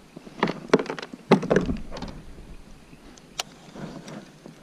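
Knocks and bumps of gear being handled on a kayak: a cluster of hollow thumps in the first two seconds, the loudest about a second and a quarter in, then a single sharp click a little later.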